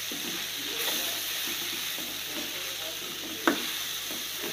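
A metal spoon stirring and scraping bitter gourd curry in a metal pot over a steady frying sizzle, with one sharp knock about three and a half seconds in.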